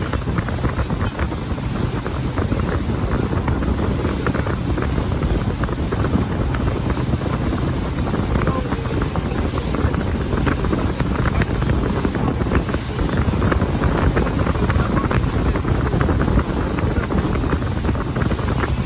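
Wind buffeting the microphone aboard a moving tour boat, a steady loud rush of wind with boat and water noise underneath.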